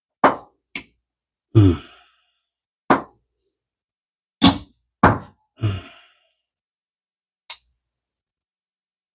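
A string of short, separate knocks and taps, about eight over several seconds, as the small parts and shaft of a vintage Daiwa spinning reel are handled and set down on the bench.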